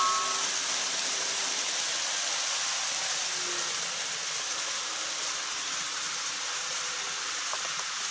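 An N-scale model train running along the track and moving away, a steady hiss of wheels and motor that slowly fades. A thin steady whine from the train stops within the first half-second.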